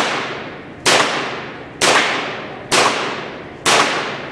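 Mosin-Nagant rifle shots, five in a row about a second apart, each a sharp crack with a long echoing decay.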